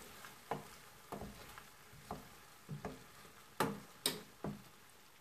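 Wooden spoon stirring and fluffing cooked chickpea rice pilaf in a stainless steel pot: a string of light, unevenly spaced knocks and scrapes as the spoon hits the pot, the two loudest a little past halfway.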